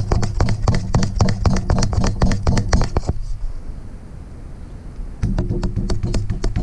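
Rubber mallet tapping repeatedly on a broken-off pencil, driving out the old rear main seal of the Jeep's 4.0 inline-six. The knocks come in quick succession, thin out for a couple of seconds in the middle, then pick up again.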